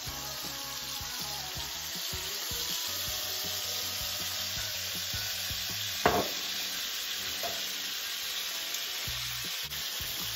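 Strip steak and sliced onions sizzling in butter and oil in a frying pan, with soy sauce just poured in; a steady frying hiss. A single sharp knock about six seconds in.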